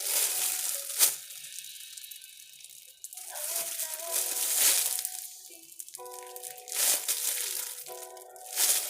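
Plastic squishy packaging crinkling and rustling in several bursts as it is handled, over background music.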